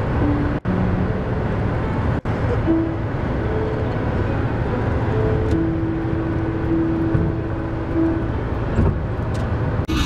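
Steady road and engine noise inside the cabin of a car driving at highway speed. The sound cuts out briefly twice near the start.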